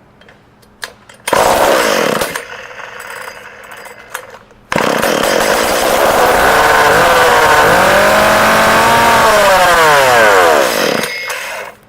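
Shindaiwa 488 two-stroke chainsaw powerhead running with no muffler. About a second in it fires loudly and falls back. About five seconds in it catches into a loud run, is revved up and down, and winds down with falling pitch near the end.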